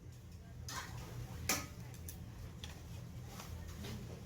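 A few irregular light clicks and knocks over a steady low hum, the sharpest about a second and a half in.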